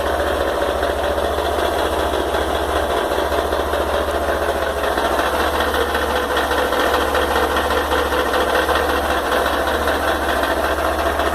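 Honda XRE 190's single-cylinder engine running steadily with a lot of mechanical noise, which the owner takes for an engine problem on a two-month-old bike, though the Honda dealer calls it normal.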